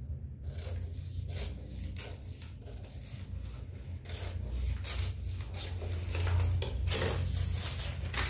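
Scissors cutting through newspaper in repeated crisp snips, with paper crackling that grows louder in the second half as the cut pieces are handled. A steady low hum runs underneath.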